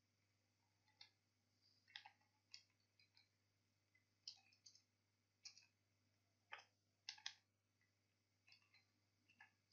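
Faint computer keyboard keystrokes: about a dozen short clicks at irregular spacing as a word is typed, some coming in quick pairs, over a faint steady hum.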